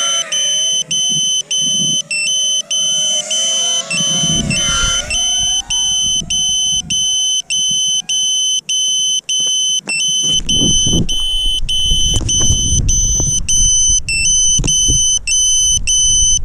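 Ceramiq Skitzo FPV quadcopter's motors whining overhead, the pitch rising and falling with the throttle for the first eight seconds or so. A steady high-pitched electronic tone, broken about twice a second, runs underneath. From about ten seconds in, a low rumbling noise takes over.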